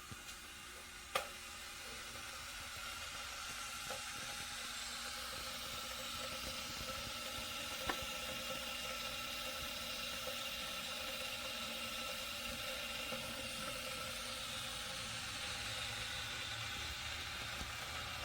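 Steady hiss with a few faint clicks, the sharpest about a second in.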